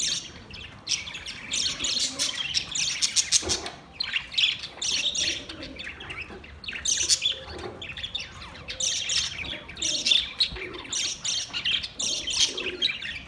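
A flock of budgerigars chattering: many overlapping quick chirps and warbling calls, continuous throughout.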